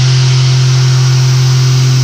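Okuma Genos M560 machining centre milling S50C carbon steel with a four-flute carbide radius end mill at 2580 rpm, cooled by an air blast: a steady low hum with an even hiss over it.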